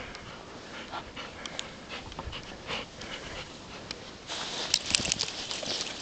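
Golden retriever puppy panting while wading through deep snow. About four seconds in, the sound turns louder and rougher, with sharp clicks.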